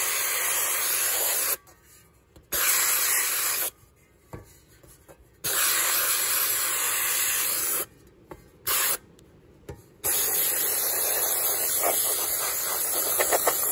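Compressed air hissing out of a Harbor Freight handheld gravity-feed blast gun as it sprays blasting media onto an old painted wheel to strip the paint. It comes in bursts of one to two seconds, cut off sharply when the trigger is released, with one brief blip, and a longer burst from about two-thirds of the way in.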